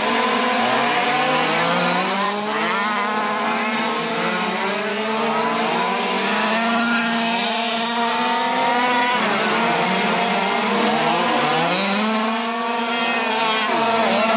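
Several fifth-scale petrol RC cars' small two-stroke engines racing together, overlapping whines that repeatedly rise and fall in pitch as each car revs up and backs off.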